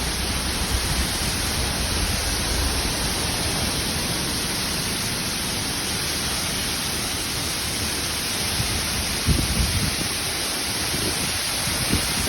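Waterfall rushing: a steady, even rush of falling water, with a few short low bumps about nine seconds in.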